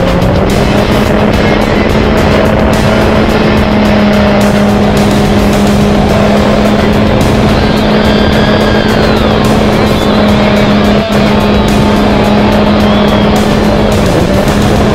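Electric motor and propeller of a model aeroplane in flight, whining steadily at one pitch close to the onboard camera, with a brief dip in pitch near the end.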